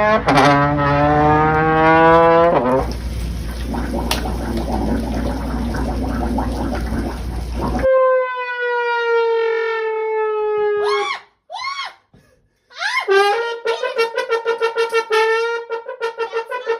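A string of horn-like comic sound effects. Blaring tones glide upward over a noisy rush for the first few seconds, and noise carries on to about the middle. Then comes a long held tone that sinks slowly, a few quick swooping chirps, and a fast wavering tone near the end.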